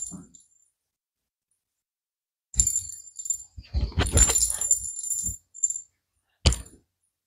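A jingle-bell cat toy ball jingling as it is rolled and picked up off a stone floor, with a few low knocks. It is followed by a single sharp knock near the end.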